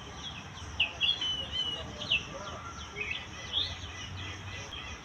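Birds calling: a string of short, sharp chirps that sweep quickly in pitch, the loudest about a second in and again around two seconds, over a steady high hiss.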